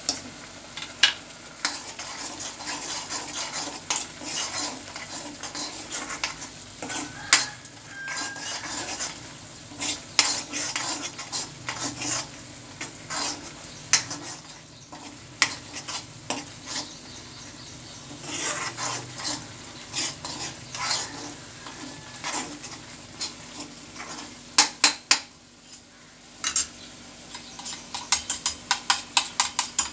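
Metal spoon stirring and scraping a thick onion-tomato masala in a black kadai while the spices fry and sizzle, with frequent clinks of spoon on pan. A few sharp knocks of the spoon on the pan come about twenty-five seconds in, and a quick run of clinks near the end.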